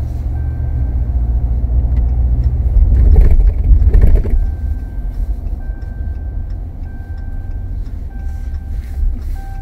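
Low rumble of a Ram 2500's 6.4-litre Hemi gas V8 and road noise heard inside the cab while driving. The rumble swells louder for about a second and a half, starting about three seconds in, as the truck accelerates. A faint, thin electronic tone comes and goes.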